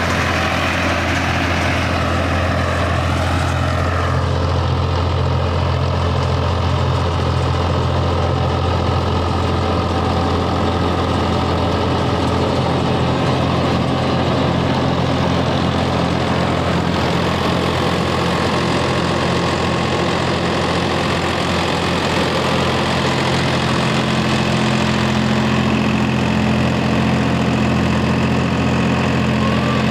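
Swaraj tractor's diesel engine running steadily under load while it drives a super seeder's rotary tiller through rice stubble.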